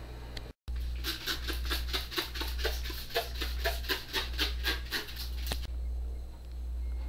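Pastry brush stroking a glaze onto shaped bread dough: a quick run of soft swishes, about five a second, that stops shortly before the end, over a steady low hum.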